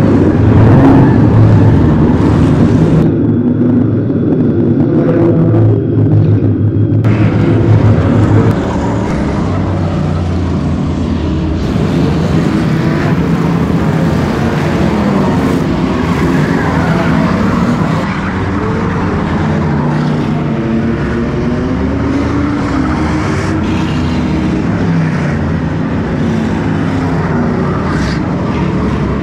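Dirt-track race car engines running hard, rising and falling in pitch as they rev, with cars passing. The sound shifts abruptly a few times between inside the race car and trackside, and is loudest in the first third.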